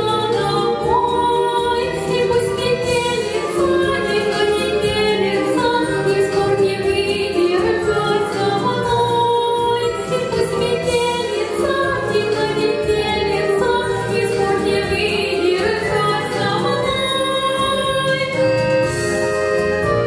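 A woman singing a Russian folk-style song in a full, open voice, holding and sliding between notes, over steady musical accompaniment.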